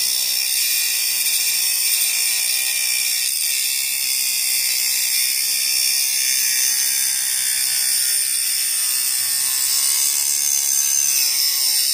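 Homemade electric mini grinder, a small DC motor with a thin cutting disc, grinding into steel nails set in a wooden block: a steady, high-pitched grinding of the disc on metal.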